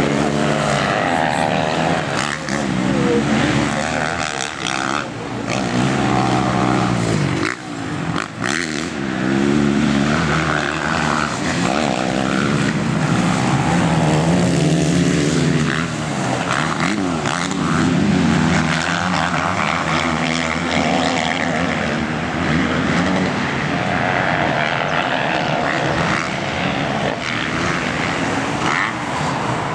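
Motocross bikes racing past on a dirt track, several engines overlapping, each revving up and dropping back again and again as the riders accelerate, shift and brake for the turns.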